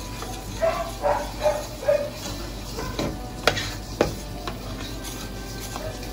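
A utensil stirring a simmering flour-thickened sauce in a pot, striking the pot with two sharp clinks about three and a half and four seconds in. Near the start, four short pitched yelps come in quick succession.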